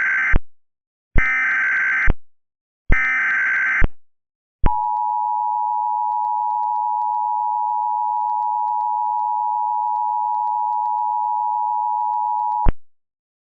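Mock Emergency Alert System broadcast tones: the buzzy digital data bursts of the SAME header, three of them about a second each, then the two-tone EAS attention signal held steady for about eight seconds before cutting off abruptly.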